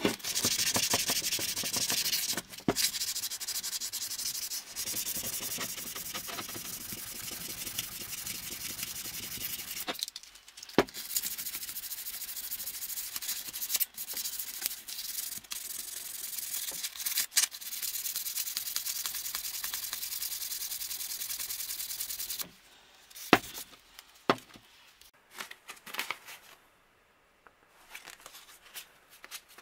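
Sandpaper rubbed by hand over an old cast-iron flat iron: a steady, fast scratching rub with a short break around ten seconds in. The rubbing stops about 22 seconds in, leaving a few scattered knocks and taps.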